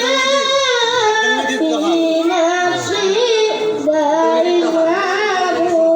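A boy's solo voice chanting a devotional samaa, sliding through ornamented phrases and holding a long note near the end.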